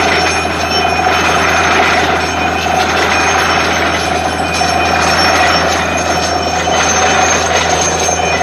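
Truck-mounted borewell drilling rig running at a wellhead: a loud, steady mechanical drone with a constant low hum and a high whine over it.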